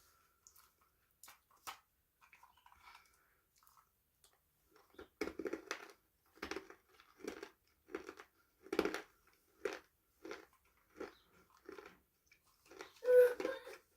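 A person chewing crunchy food close to the microphone: a few faint mouth clicks, then about five seconds in, regular crunching chews roughly every 0.7 seconds, with a louder crunch near the end.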